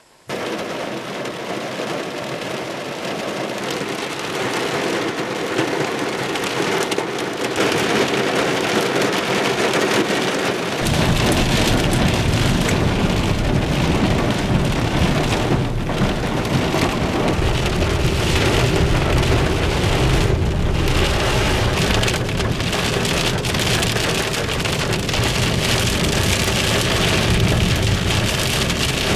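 Heavy rain hitting a car's windscreen and body, heard from inside the car. It starts abruptly. About eleven seconds in, a steady low rumble joins and continues.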